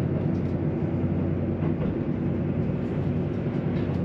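Cabin sound of a JR Central KiHa 85 series diesel railcar under way: a steady rumble of the diesel engines and running gear, with a constant low hum.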